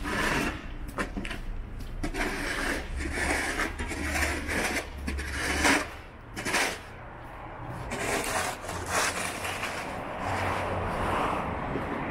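Long-handled snow scraper scraping ice and packed snow off a pavement in repeated strokes, loudest about six seconds in.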